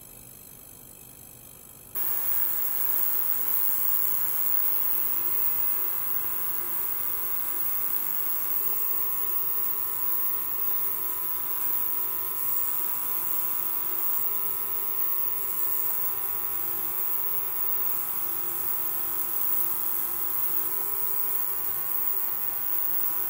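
Portable ultrasonic cleaner running with stainless steel containers standing in its water bath: a steady electric buzz with hiss that cuts in abruptly about two seconds in.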